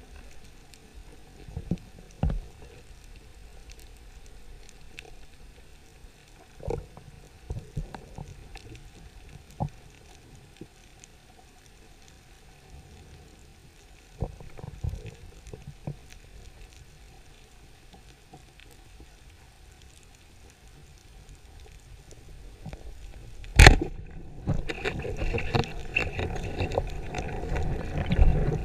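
Muffled underwater sound through a camera's waterproof housing: a low rumble with scattered soft knocks, then one sharp loud click near the end, followed by louder rushing, gurgling water noise.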